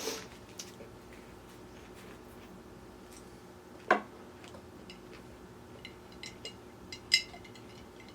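Ice cubes clinking against a glass of iced tea: scattered light clicks, one louder knock about four seconds in, and a quick run of bright, ringing clinks near the end.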